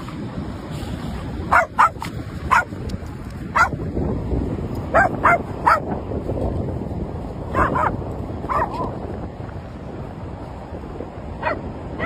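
A dog giving short, high-pitched play yips and barks, about ten in clusters, over steady wind and surf noise.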